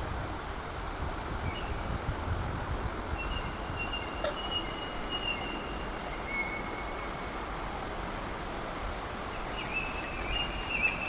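Outdoor ambience: a steady rushing hiss with thin, drawn-out high whistles, a single sharp click about four seconds in, and from about eight seconds in a rapid run of high chirps, about four a second.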